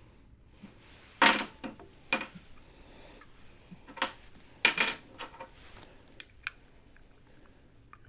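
Sharp metallic clinks and clacks of a scooter's front disc brake pads and caliper being handled and knocked together, about seven in all, the loudest a little over a second in and just before five seconds in.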